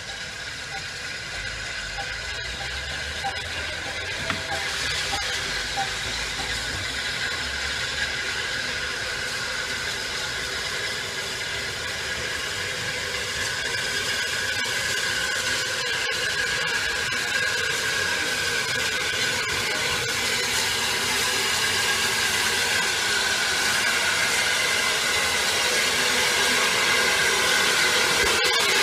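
Steam hissing from an Austerity 0-6-0 saddle tank steam locomotive as it drifts into the platform, growing steadily louder as it comes closer.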